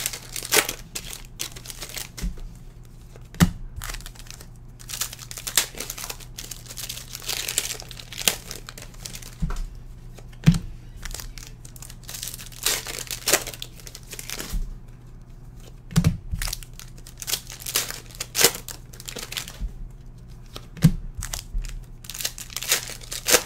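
Plastic trading-card pack wrappers on Prizm basketball packs crinkling and tearing as they are opened by hand one after another, with cards handled in between. The crinkling comes in bursts every second or two, with a few sharp knocks mixed in.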